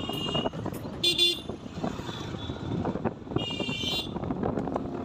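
Motorcycle running along a road with traffic noise, while a vehicle horn toots twice: a short blast about a second in, the loudest moment, and another near three and a half seconds.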